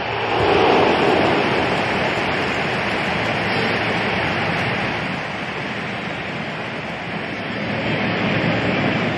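Football stadium crowd cheering a goal, a dense roar that swells about half a second in and then carries on steadily.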